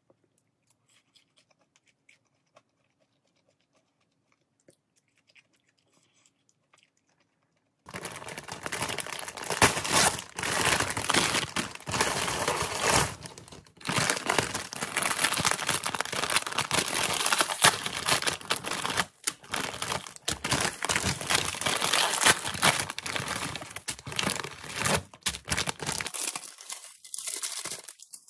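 Plastic instant-ramen packaging crinkling and rustling loudly as hands unpack noodle packets from a plastic bag. It starts abruptly about eight seconds in, after a near-silent stretch, and dies down shortly before the end.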